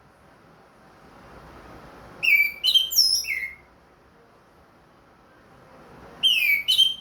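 Orange-headed thrush (anis merah) singing: two bursts of loud, clear whistled phrases made of quick downward-sliding notes, the first about two seconds in and the second near the end, with a pause between.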